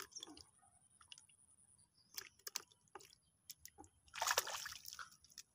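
Shallow water splashing and sloshing for about a second, starting about four seconds in, as a hooked climbing perch (koi) struggles at the surface among the weeds. A few faint sharp clicks come before it.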